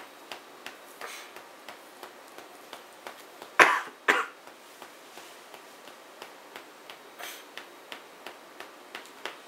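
A person coughs twice in quick succession a little over a third of the way in, over faint light taps and clicks of playing cards being handled and laid down on a play mat.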